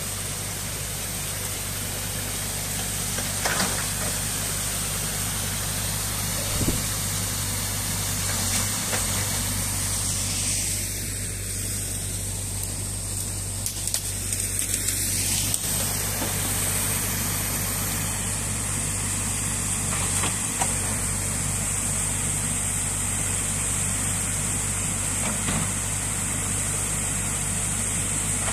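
Water rushing and splashing through a breach in a beaver dam, a steady hiss, over the steady low hum of a small crawler excavator's diesel engine running. A few light knocks stand out now and then.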